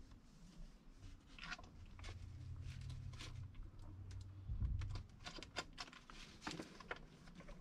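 Scattered light clicks and taps of hands working on a small plastic air-purifier unit, fitting its magnets and bolts. A dull thump comes about four and a half seconds in, over a faint low hum.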